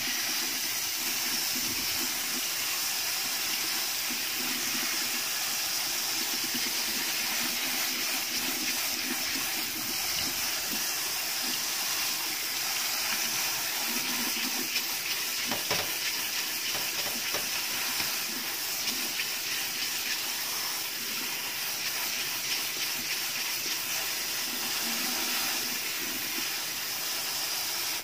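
Tap water running steadily through basmati rice in a stainless-steel mesh strainer and splashing into a stainless-steel sink as the rice is rinsed.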